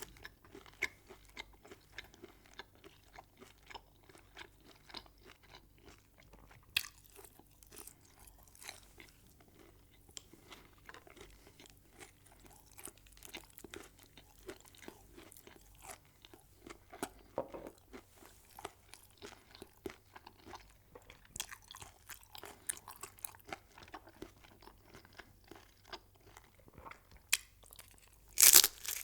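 Close-miked chewing of crunchy food: many small crackling crunches throughout, with a loud crunchy bite near the end.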